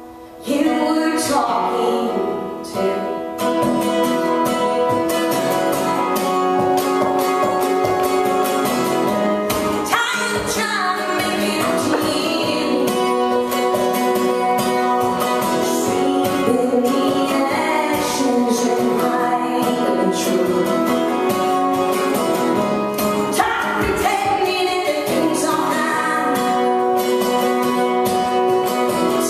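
A woman singing long, held notes over a strummed acoustic guitar, with the voice swooping upward in pitch twice. It starts after a brief lull right at the beginning.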